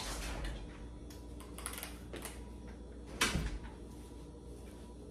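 A door being opened and pushed shut, with a knock as it closes about three seconds in.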